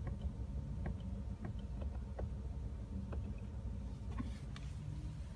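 Ford F-150's 5.0 L V8 idling in park at about 800 rpm, a steady low rumble heard from inside the cab. Faint, irregular clicks of the steering-wheel menu buttons run over it, about one or two a second.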